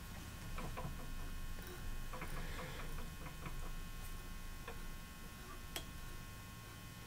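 Light scattered clicks and taps of small fly-tying tools and the vise being handled, with one sharper click near six seconds. A faint steady electrical hum runs underneath.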